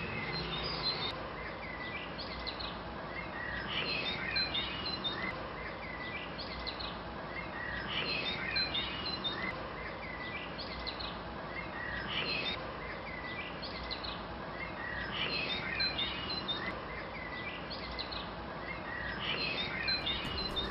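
Songbirds chirping, a cluster of short calls about every four seconds over a steady hiss of background noise.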